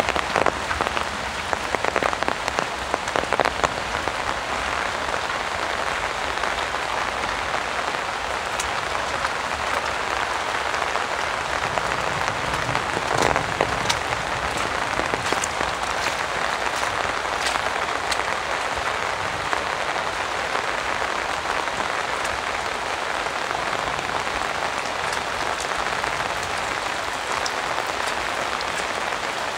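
Heavy rain falling steadily, with sharp individual drop strikes now and then, thickest in the first few seconds and again around the middle.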